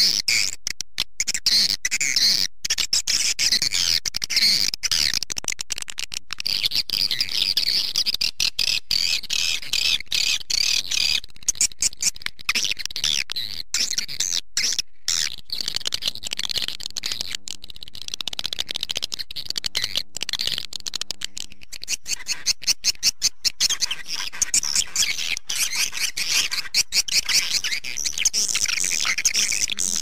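Recorded swiftlet calling sound, the lure played at a swiftlet house to draw the birds in: a dense, continuous, high-pitched twittering chorus of many swiftlets.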